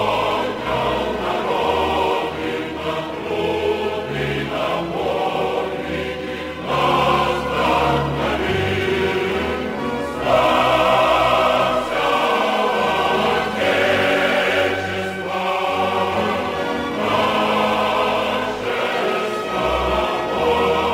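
Music with a choir singing in sustained phrases over low bass notes.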